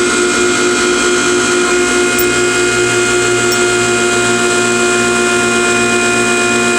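Dayco K501 hose crimper's hydraulic pump running with a loud, steady whine while it drives the die closed on a hose fitting's ferrule.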